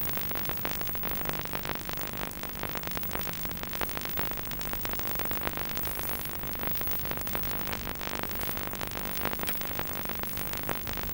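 Electronic synthesizer music with a steady, noisy, hissing texture.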